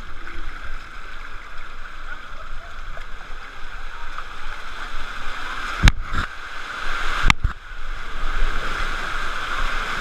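Water rushing and splashing down a wild-river water slide, heard from right at water level as a rider slides along. Two sharp knocks cut through about six and seven seconds in.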